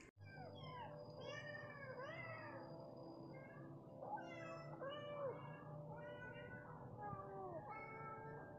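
Cats meowing: a quick run of short rising-and-falling calls at several different pitches, some overlapping, playing from a laptop's speaker.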